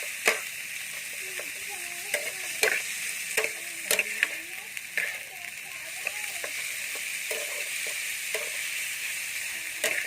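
Food frying in a pan with a steady sizzle, stirred with a utensil that clicks sharply against the pan every second or so. Faint wavering squeaks come and go underneath.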